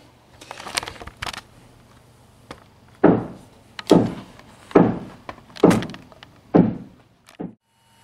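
A few light clicks, then five heavy thuds about a second apart, each a sharp hit dropping into a low boom: blows from nearby building work.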